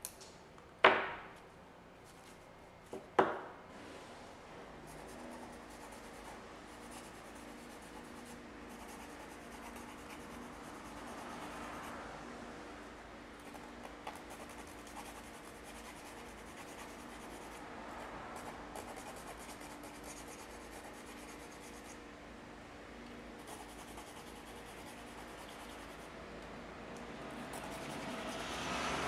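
Flat hand file rasping along the edge of a fibreglass circuit board, filing down the leftover breakaway tabs, in a steady scrape that swells and fades with the strokes. Two sharp clicks in the first few seconds are the loudest sounds.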